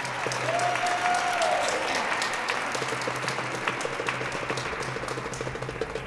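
Audience applauding, loudest in the first couple of seconds and slowly thinning, with one long held cheer near the start.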